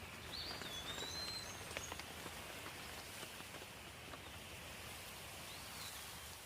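Steady rain falling, with individual drops ticking sharply in the first couple of seconds. A bird gives a short high whistled call near the start and again near the end.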